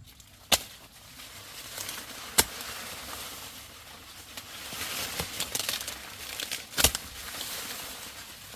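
Rustling and crackling of corn plants with three sharp snaps, the first about half a second in, the second about two and a half seconds in, the loudest near the end: ears of corn being snapped off the stalks.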